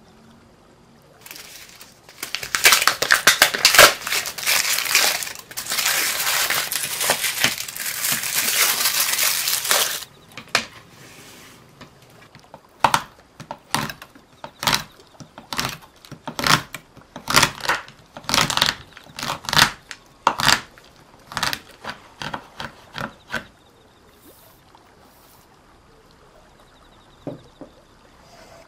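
A hand wire whisk beating whipped cream in a glass bowl: a fast, steady run of strokes for about eight seconds, then slower separate strokes, about one or two a second, that stop a few seconds before the end. The cream is being re-whipped to stiffen it.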